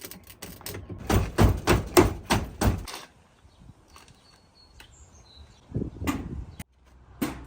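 A quick run of sharp metallic clicks and knocks for about three seconds, then two single knocks later on, from hand tools at the car battery's terminals. A bird chirps faintly in between.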